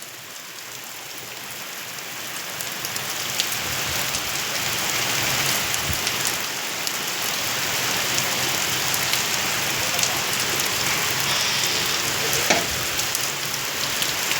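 Heavy rain falling steadily, a dense hiss with scattered drop patters, building up over the first few seconds and then holding steady.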